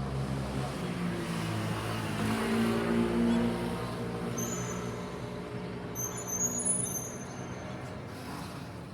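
City street ambience: a motor vehicle's engine hum passing by, loudest about two to three seconds in and then fading, with a few short thin high-pitched tones near the middle.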